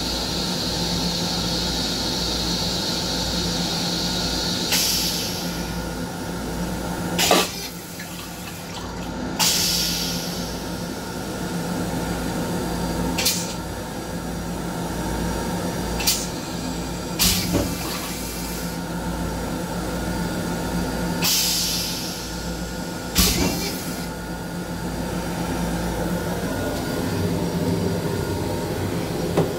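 Steady hum and rumble inside the restroom of an M7 commuter railcar, with a high hiss during the first few seconds. After that come about eight sharp knocks and a few short hissing bursts, spread out irregularly.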